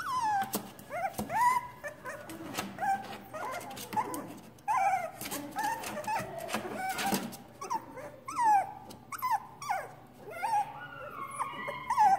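Three-week-old Pomsky puppies whimpering and yipping: many short, high calls, most of them sliding down in pitch, coming one after another with scattered light clicks between them.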